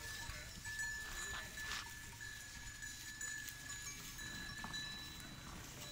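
A flock of goats and sheep grazing in dry grass: scattered light clicks and rustles over a steady high tone that breaks off now and then.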